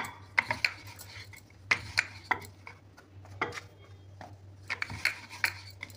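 Scattered light knocks and taps of a wooden rolling pin on a wooden rolling board and against a steel plate, as flatbread dough is rolled and dusted in flour, over a low steady hum.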